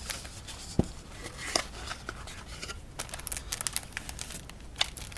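A cardboard box being opened and its paper packaging and card decks handled: crinkling and rustling with light taps and clicks, a firmer knock about a second in, and busier crinkling about three seconds in.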